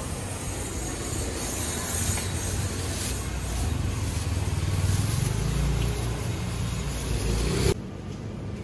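Street traffic: a motor vehicle's engine rumbling, growing louder over several seconds, then stopping abruptly near the end.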